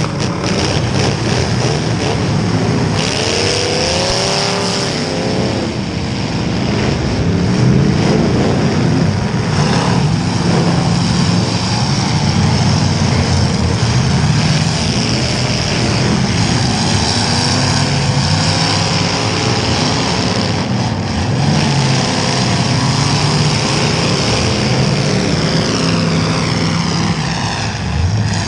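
Demolition derby car's bone-stock V8 engine running, revving up and down several times, with other derby cars' engines running around it.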